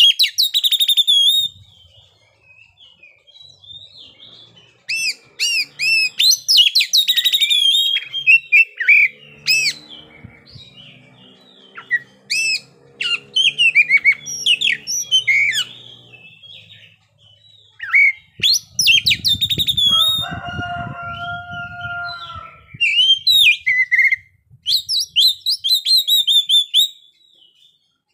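Oriental magpie-robin singing a continuous, varied song of rapid whistles, trills and sharp high notes in quick phrases with short pauses. About twenty seconds in, a lower, steady-pitched call lasts around two seconds over a low rumble.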